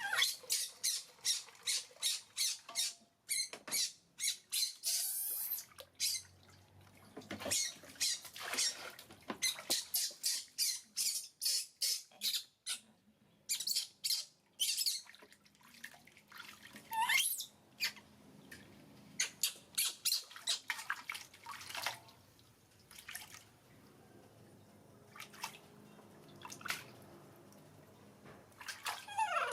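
Water splashing and dripping in quick runs of short bursts, with a baby monkey giving a couple of short falling squeaks.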